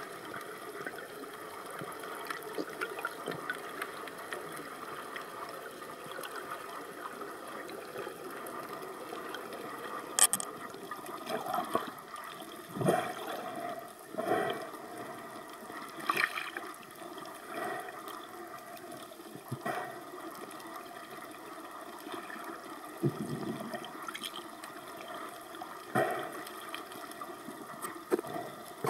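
Water heard through a camera held underwater: a steady wash of water noise with a faint hum, broken from about ten seconds in by several short, louder splashing, bubbling bursts.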